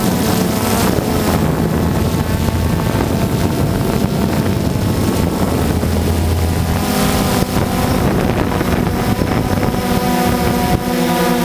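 DJI Phantom 2 quadcopter's electric motors and propellers buzzing steadily, with wind rushing on the microphone; the pitch of the buzz shifts in the second half as the motor speeds change.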